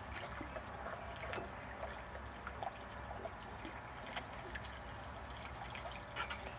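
Light splashing and trickling water as a hooked carp wallows at the surface and is drawn over a landing net, with a few faint sharp clicks.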